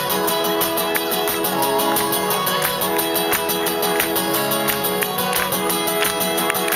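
Acoustic guitar strummed in a live instrumental break between sung lines, with the crowd clapping along in time, about one clap every 0.7 seconds.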